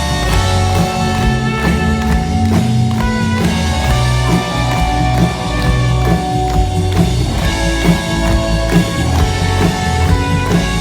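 Instrumental rock music: a band playing guitar and drums, with no singing.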